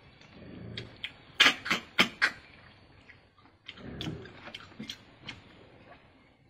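Wet sucking and slurping as meat is sucked out of stir-fried river snail shells, in two spells, with sharp clicks and smacks of lips and shells.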